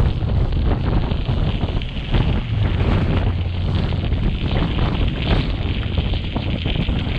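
Strong gusting wind buffeting the microphone of a bicycle-mounted or handheld camera while riding into a blizzard: a loud, continuous rumble with a rushing hiss over it, fluttering unevenly with the gusts.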